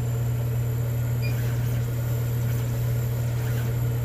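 Steady low hum of a 50 W CO2 laser engraver's running auxiliaries (air-assist pump, water pump and exhaust), with faint light whirs from the stepper motors as the laser head traces the job outline in track mode.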